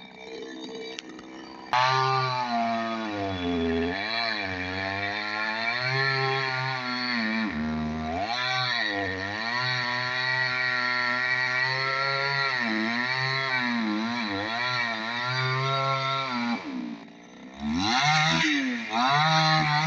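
Chainsaw at full throttle, cutting into a large trunk from about two seconds in. Its pitch sags and recovers again and again as the chain bogs down in the wood. Near the end it drops back briefly, then is revved in short bursts.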